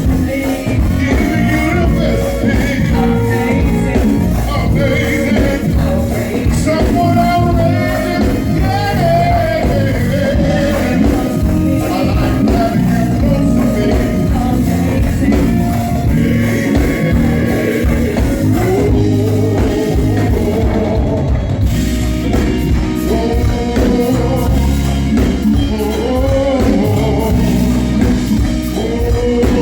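A go-go band playing a steady, continuous groove with a lead voice singing over it.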